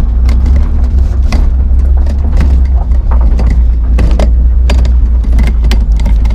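BMW E36's swapped-in M50 straight-six running as the car is driven, heard from inside the cabin as a steady deep rumble. Frequent short knocks and rattles come from the car jolting over a bumpy gravel track.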